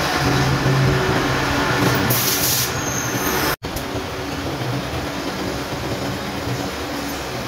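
Manual metal lathe running with a steady mechanical rumble and clatter. It cuts out abruptly for an instant about halfway through, then carries on slightly quieter.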